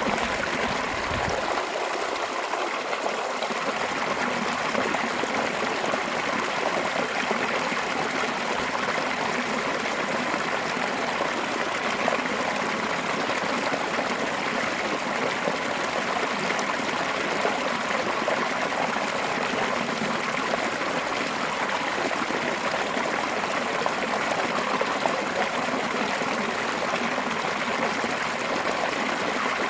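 Fast-flowing mountain stream, water spilling in a curve over rocks and rushing on steadily.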